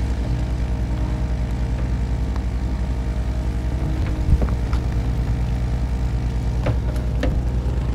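Excavator's diesel engine running steadily with an even low throb. There is a single knock about halfway through and a few faint metallic ticks near the end.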